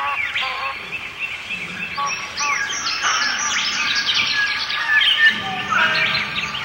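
A chorus of small birds chirping and twittering, many quick high chirps overlapping, densest from about two seconds in.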